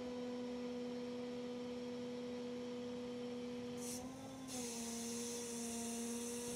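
PTO-driven hydraulic pump on a tilt-and-slide recovery truck running under load with a steady hum while the bed is moved by its control lever. The hum briefly rises in pitch about four seconds in, and a high hiss comes in soon after.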